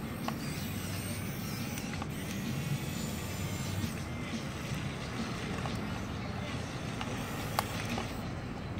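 Remote-control model Komatsu PC1250 excavator's electric motors and gearboxes whirring steadily as the arm and bucket work, with a few sharp clicks.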